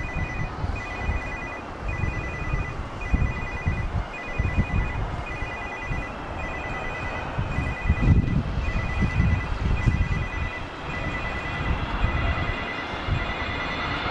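An electronic ringing tone, trilling on two pitches at once, repeats about twice a second over heavy gusts of wind on the microphone. Near the end the engine whine of a Boeing 777 on final approach begins to rise.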